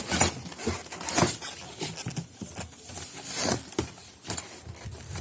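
Irregular rustling, clicks and knocks of the washing machine's packaging being handled and opened.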